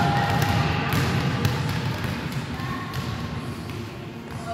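Volleyballs thudding a few scattered times on a sports hall floor, echoing in the hall over a steady low hum.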